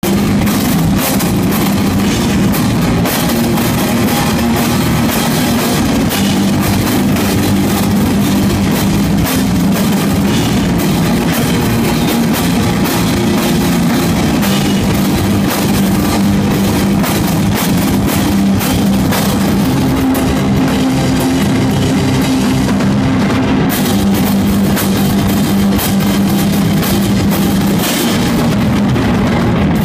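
A crust punk band playing live: distorted electric guitar over fast drum kit, loud, dense and unbroken.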